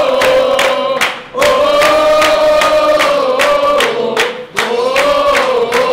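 A group of sports fans chanting together in long held phrases, kept in time by steady hand-clapping about three to four claps a second; the chant breaks off briefly twice to draw breath.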